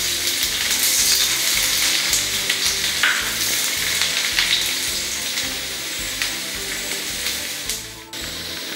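Chopped garlic sizzling in hot oil in a metal kadai, steadily, while a silicone spatula stirs it around the pan.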